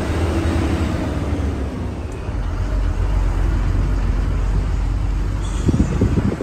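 Moving road vehicle on a mountain road: steady low engine and road rumble, with a few short low thumps near the end.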